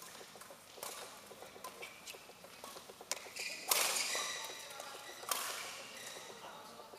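Badminton rally: rackets striking the shuttlecock with sharp cracks that echo in the hall, the two loudest about halfway through and a second and a half later. Shoes squeak and patter on the court between the hits.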